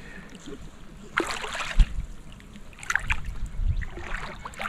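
Water sloshing and splashing around legs wading through shallow water, three swishes about a second apart.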